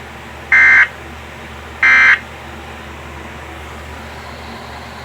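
Weather radio receiver audio: two short, high electronic beeps about 1.3 seconds apart, then steady static hiss.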